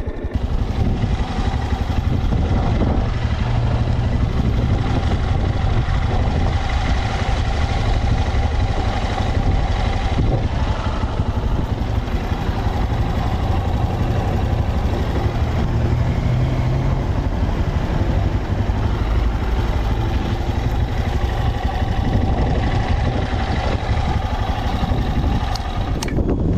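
Honda XRE 190 single-cylinder motorcycle engine running steadily through its exhaust, holding an even speed with no revving, then dropping off just before the end.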